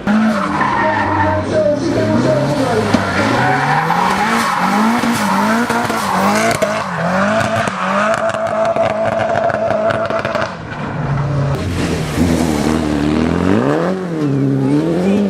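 Turbocharged racing car engine revving hard, its pitch rising and falling over and over about once a second, with a short lull partway through before another car or run picks up the same rising and falling note.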